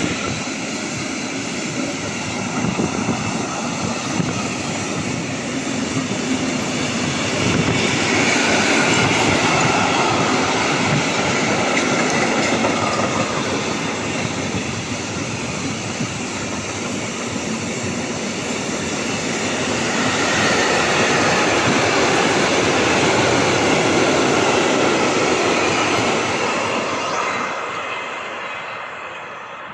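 A train running through the station, a long continuous rumble of wheels and motors that swells twice and fades away near the end.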